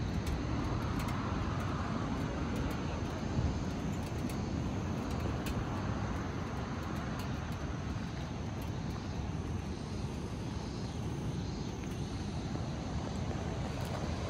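Surf and wind at the seashore: a steady rushing noise, with wind buffeting the microphone.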